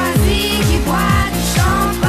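House-style electronic dance music: a steady four-on-the-floor kick drum, a little over two beats a second, under a bright melodic line.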